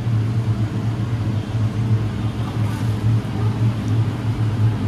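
Steady low machine hum from commercial kitchen equipment running, unbroken and even in level.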